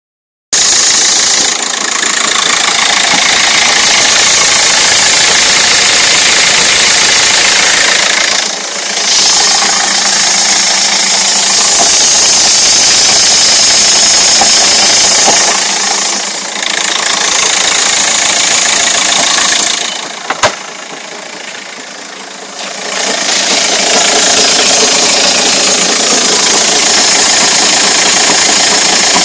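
Volkswagen Caddy engine running loudly with a knock, the fault the owner is recording. The sound dips briefly twice and goes quieter for a few seconds about two-thirds through, with a single sharp click at the start of that quieter spell.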